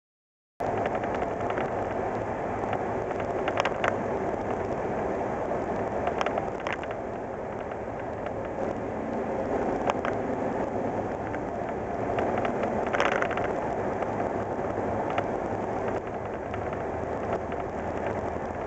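Steady engine and road noise inside the cab of a 1987 Ford Ranger pickup with the 2.9L Cologne V6, driving at highway speed, with a few sharp clicks and rattles. The sound cuts in about half a second in.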